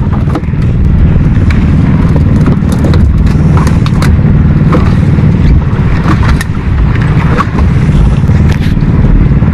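An engine running steadily with a low, even hum, with scattered light clicks and knocks over it.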